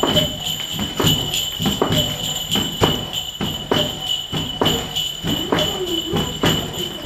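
Small bells jingling, shaken in an uneven beat of about two strokes a second, their high ringing carrying on between strokes.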